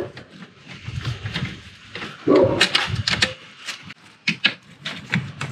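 Irregular clicks, taps and knocks of plastic clips, covers and tools being handled during engine-bay disassembly, with a louder, busier stretch about two seconds in.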